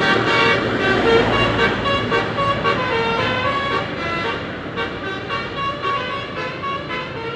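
Basuri multi-tone bus horn ('telolet') playing a quick melody of short notes over road traffic noise, growing somewhat fainter in the second half.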